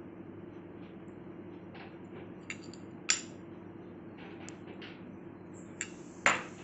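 A metal spoon clinking and tapping a few times as soft rabri is spooned into a crisp vermicelli bowl, the sharpest click near the end. A steady low hum runs underneath.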